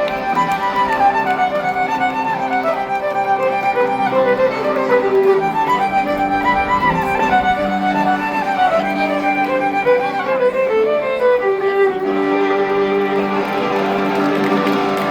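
Fiddle playing a quick melody over long held chords from the live band, with no singing.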